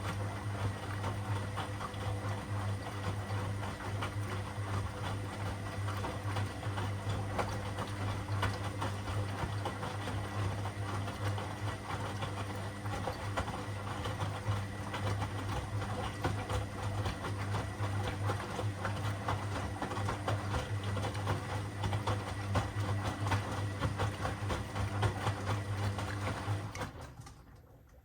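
Washing machine running: a steady motor hum with a fast, even rattle from the turning drum, cutting out abruptly near the end.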